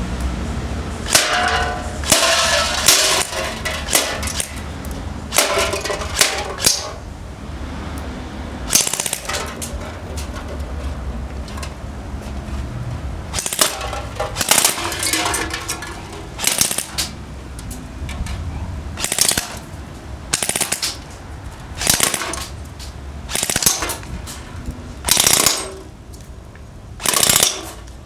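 ICS SIG 552 Commando airsoft electric rifle firing on full auto in short bursts: a rapid mechanical rattle with each trigger pull, about twenty bursts with pauses between them, over a steady low rumble.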